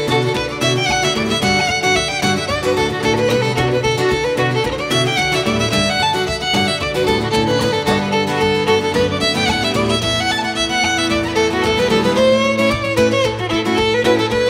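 Fiddle and strummed acoustic guitar playing a Scottish reel together, the fiddle carrying the melody over a steady strummed rhythm.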